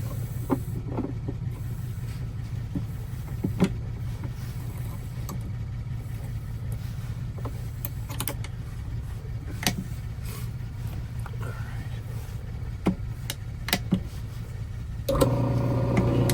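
Key duplicating machine: scattered light clicks and taps as a key is set and clamped in its vise, over a steady low hum. About fifteen seconds in, the machine's motor comes on and a louder, steady hum with a whine takes over.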